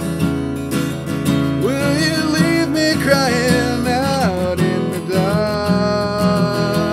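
Acoustic guitar strummed steadily. From about two seconds in, a wordless sung melody slides and wavers above it.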